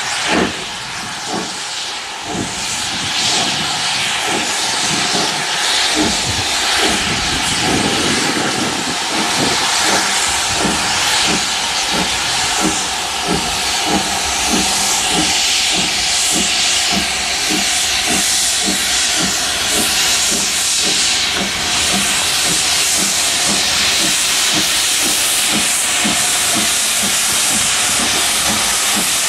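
LMS Black Five 4-6-0 steam locomotive 44806 pulling away under load: its exhaust beats, about two a second, ride over a steady hiss of steam from the open cylinder drain cocks.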